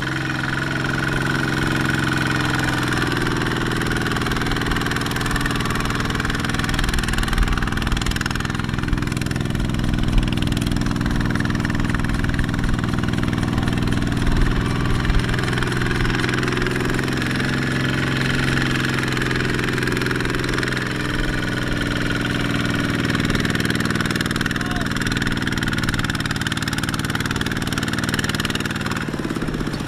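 Two-wheel walking tractor's single-cylinder diesel engine running steadily while it pulls a loaded trailer through the field.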